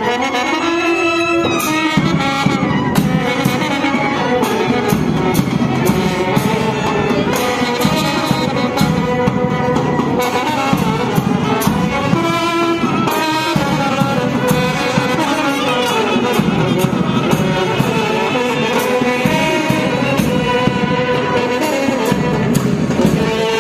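Brass band playing a tune, with horns carrying the melody over a steady drum beat.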